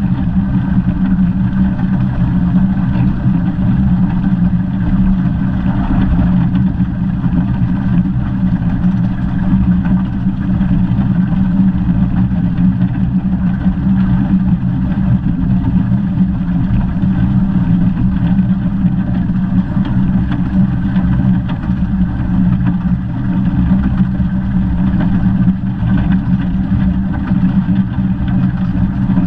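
Steady running noise of the 15-inch-gauge steam locomotive 'Northern Rock' on the move, heard close up from the cab side. It is a continuous low mechanical rumble, with no distinct beats or whistle.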